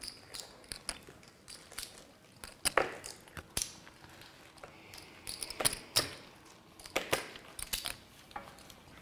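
Poker chips being handled and shuffled at the table: a run of short, sharp clicks at irregular spacing.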